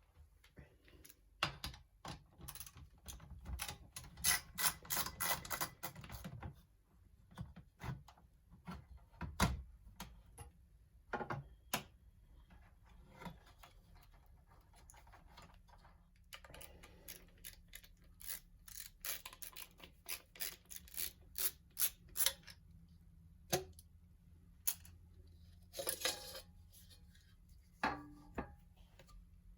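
Small clicks, taps and knocks of hand tools and parts being handled inside an opened all-in-one PC, with runs of quick clicking and an occasional heavier knock.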